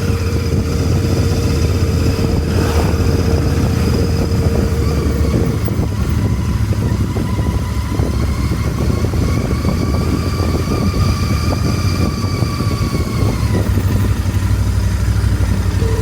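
Royal Enfield Interceptor 650 parallel-twin engine running with a steady whine over its rumble. The whine stops about five seconds in, and a higher whine then rises slowly and falls away near the end. This is the abnormal howling sound the owner hears from the engine.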